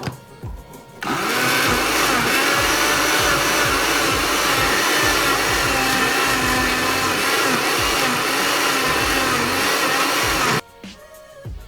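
Electric kitchen blender running for about nine and a half seconds. It starts and cuts off abruptly, and its motor pitch wavers slightly as it works.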